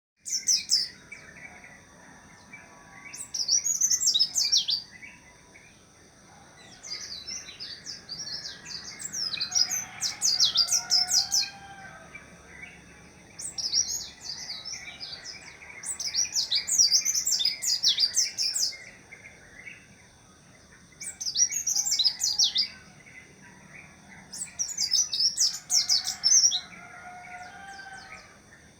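A pleci (white-eye) singing in repeated bursts of fast, high-pitched twittering song, each one to two seconds long, with short pauses between, over a faint steady high whine.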